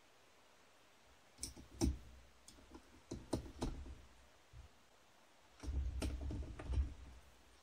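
Small hard-plastic model-kit parts clicking and knocking as they are handled and fitted together: a few sharp clicks about a second and a half in, more through the middle, and a denser run of clicks and low knocks near the end.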